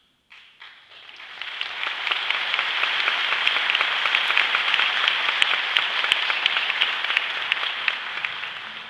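Audience applauding, building up over the first couple of seconds, holding steady, and starting to die away near the end.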